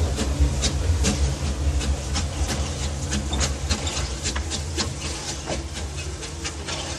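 Narrow-gauge steam locomotive moving off light engine, with a quick, uneven run of sharp exhaust chuffs and hissing steam over a low rumble, slowly fading as it draws away.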